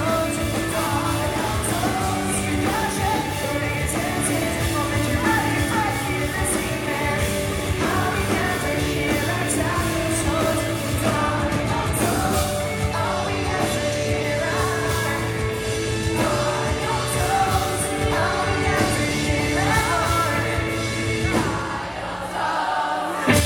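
Pop-punk band playing live, with a lead singer over guitars and drums, the music dipping briefly just before the end.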